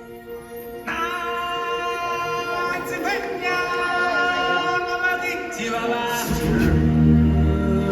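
Music with a choir singing long held notes, which come in about a second in; a heavy bass comes in near the end.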